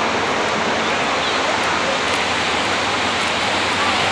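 Ocean surf breaking and washing on a sandy beach, a steady, even rushing hiss.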